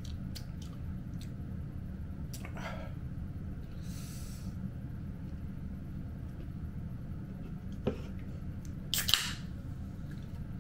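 Mukbang eating noises over a steady low hum: scattered faint mouth clicks, a short slurp about four seconds in, and a louder sharp click about nine seconds in.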